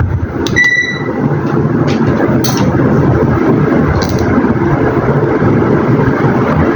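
Alpha COSA CX8 56-inch ceiling fan running, a steady loud rush of moving air, with a few light clicks. A short high beep sounds about half a second in.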